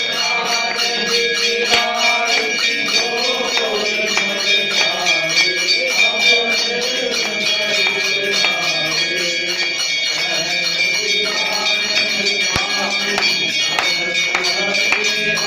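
Hindu temple aarti: bells ringing without a break, with jingling, shaken percussion and voices singing the aarti.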